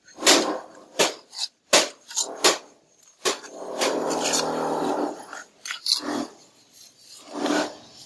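Masonry work: a run of sharp taps and scrapes, like a trowel working mortar and knocking bricks into place, with a longer rasping scrape about halfway through.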